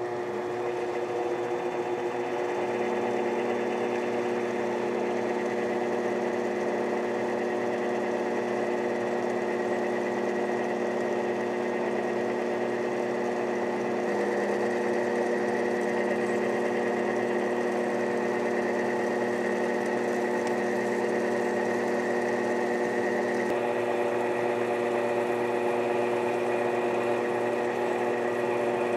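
Mini lathe running: its motor and spindle give a steady whine made of several tones while a center drill in the tailstock chuck is fed into the spinning aluminum part. A lower tone joins a couple of seconds in.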